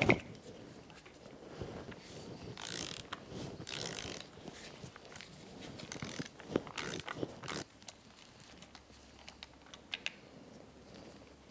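A ratchet with an extension clicking as it loosens a spark plug on a 2006 Mercury 115 EFI four-stroke outboard, in a few rasping bursts in the middle. It opens with a single sharp pop as the plug wire's boot comes off the plug.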